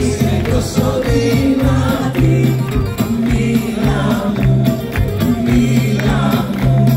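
Two women singing a Greek song together live, amplified through a PA, over a band including accordion, keyboard and drums playing a steady beat.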